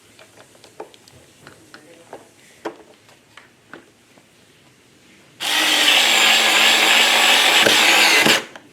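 Light plastic clicks as toy parts are handled and fitted, then a power drill/driver runs steadily for about three seconds, driving a screw, and stops suddenly.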